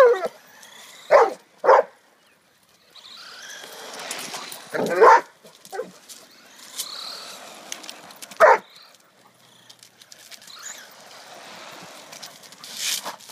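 A Doberman barking in short single barks, about five loud ones spread out with pauses between, while it chases an RC car.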